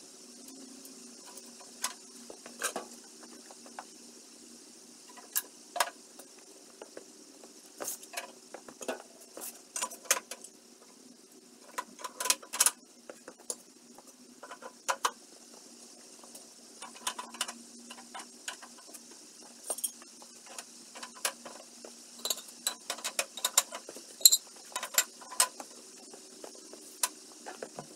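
Irregular metallic clinks and knocks of cast-iron wood-stove parts (a door, a firebox grate and the round cooktop lids) being fitted back in place.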